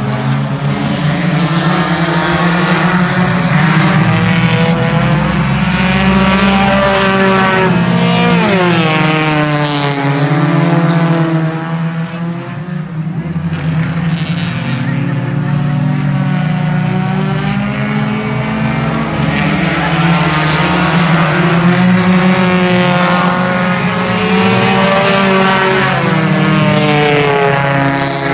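Dirt-track race cars running laps of the oval, a pack of engines at full throttle. The engine notes rise and fall as cars go by, with the strongest swings about a third of the way in and again near the end.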